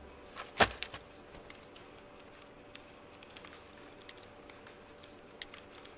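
A single sharp knock about half a second in, followed by a couple of smaller clicks. Then a faint steady hum of room tone with a few scattered light clicks.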